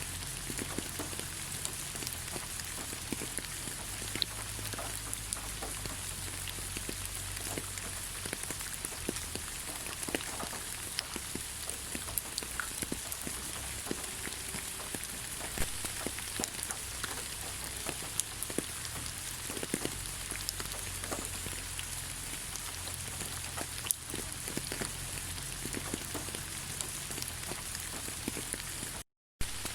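Steady rain falling on leaves, a constant patter of many separate drops hitting the foliage. The sound cuts out completely for a moment near the end.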